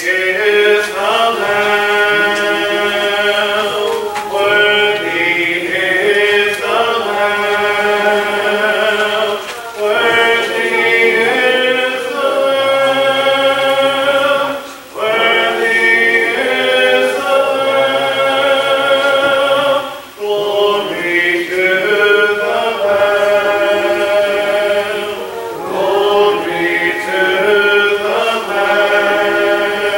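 Congregation singing a hymn a cappella, many voices together without instruments, with brief pauses between phrases.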